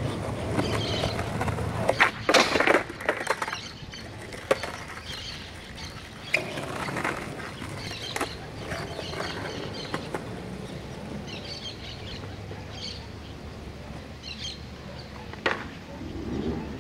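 Skateboard wheels rolling on concrete, broken about two seconds in by a cluster of loud clacks as the board is popped for a kickflip and slaps down. Rolling resumes more quietly, with a few single clacks and one sharp one near the end; birds chirp faintly in the background.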